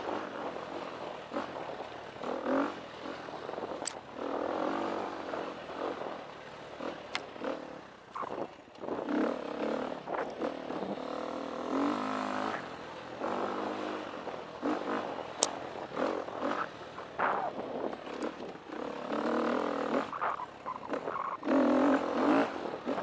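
A KTM 350 EXC's four-stroke single-cylinder dirt bike engine revving up and falling back over and over as the throttle is opened and closed. A few sharp clicks come through over it.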